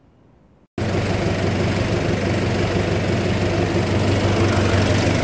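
Quiet room tone for under a second, then an abrupt switch to a loud, steady engine running at idle, a low even drone that does not change pitch.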